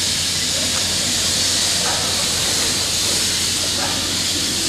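Steady high-pitched hiss of background noise with a low, even hum underneath.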